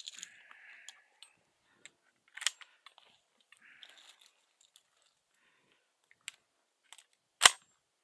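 A Winchester SX4 20-gauge semi-automatic shotgun being loaded: a few sharp metallic clicks and brief rustles as shells are handled and pushed into the magazine, with one loud sharp clack near the end.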